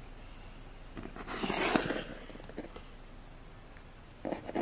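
Quiet handling noise: a soft rustle lasting about a second, then a few light taps near the end as a plastic toy figure is set down on a wooden table.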